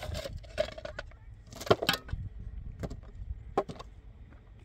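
Hand digging in stony ground with a pick: a series of irregular sharp knocks and clinks of the pick striking rock and stones, the loudest about a third of the way in.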